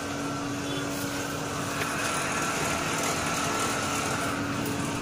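A fully automatic paper plate and dona making machine running: a steady mechanical hum with a thin higher tone joining about two seconds in.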